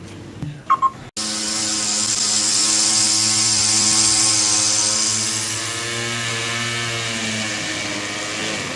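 Small two-stroke petrol string trimmer running steadily at high speed, cutting in abruptly about a second in after a couple of faint clicks.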